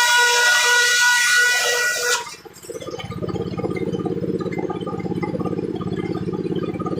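Circular saw blade cutting through wood with a loud, high, ringing whine that cuts off suddenly about two seconds in as the cut ends. A lower, steady, rapid chugging of the machine driving the saw then carries on.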